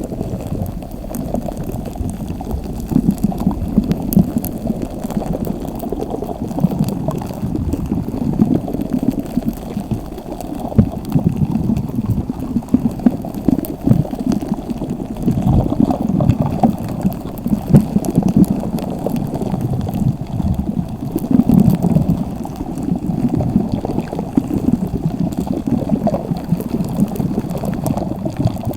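Slime being squeezed and kneaded by hand: continuous wet squelching with frequent small sticky pops.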